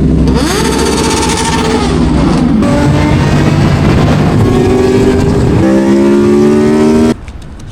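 Sport motorcycle engine revving and accelerating hard, its pitch climbing and dropping through several pulls, in loud pieces that change abruptly about two and a half and five and a half seconds in and cut off suddenly near the end.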